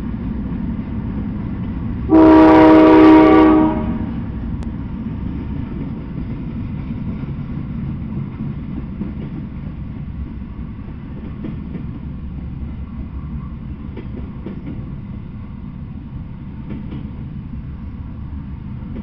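Double-stack intermodal freight train rolling past, a steady low rumble of wheels on rail. About two seconds in, a diesel locomotive's air horn sounds one blast of just under two seconds, the loudest sound here. A few faint wheel clicks come later.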